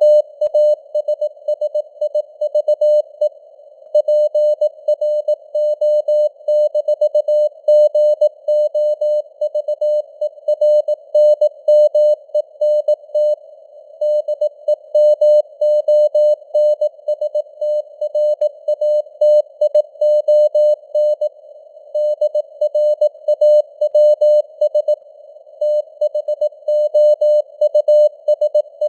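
Morse code (CW) at 18 words per minute: a single-pitch beep keyed on and off in dots and dashes. Under it sits a narrow band of hiss, simulating a radio signal heard through a receiver with noise and fading signal strength.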